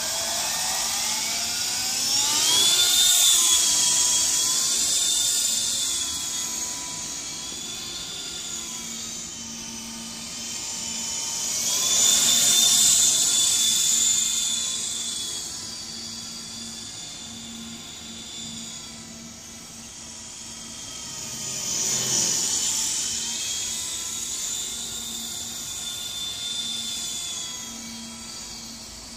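MJX F45 radio-controlled helicopter's electric motor and rotors whining, rising in pitch as it spins up. The high whine then wavers in pitch and swells and fades three times as the helicopter flies nearer and farther.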